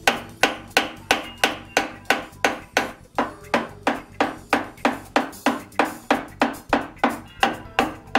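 Soft-face mallet tapping repeatedly on a lathe's compound rest, about three even blows a second, each with a short metallic ring, knocking the compound slide loose.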